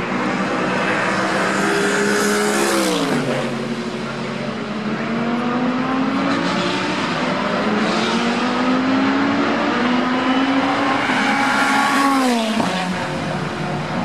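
GT3 race cars passing at racing speed: the engine note climbs as each car accelerates toward the listener, then drops steeply in pitch as it goes by, about three seconds in and again near the end.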